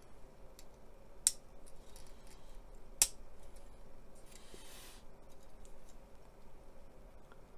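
Small plastic model-kit parts being handled and pressed together: two sharp clicks about a second and a half apart, then a brief rustle.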